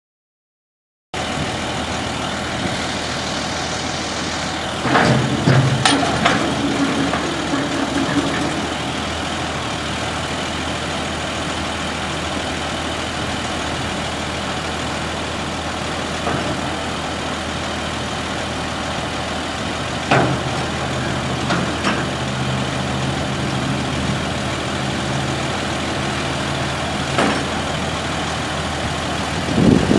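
The 8.7-litre International DT530E inline-six diesel of a 1999 International 4900 dump truck idling steadily, starting about a second in. Its note changes and sharp clunks come through a few times while the front snow plow blade is angled and lifted.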